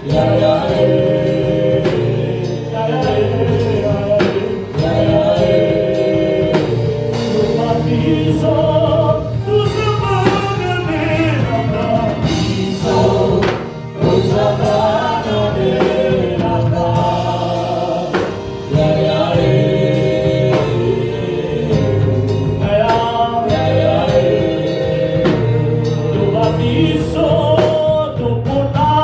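A gospel choir sings a worship song, backed by a band with a steady bass and beat.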